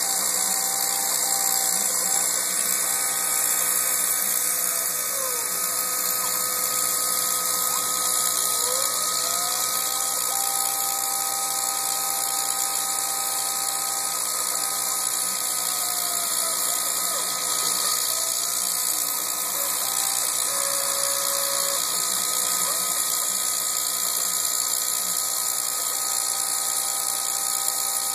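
Milling machine cutting an inner channel in a prototype part: a steady high-pitched whine and hiss of the spindle and cutter, with some tones sliding up and down in pitch.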